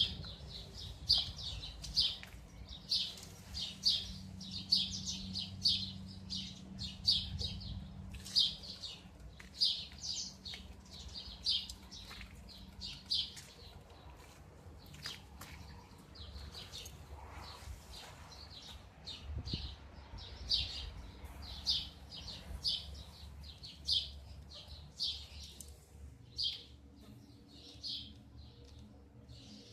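A small bird chirping repeatedly in short, high chirps, about one to two a second, growing sparser in the second half. A faint steady low hum runs underneath.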